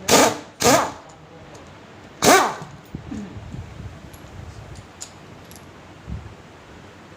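A dog barking three times: two quick barks close together, then a third about two seconds in.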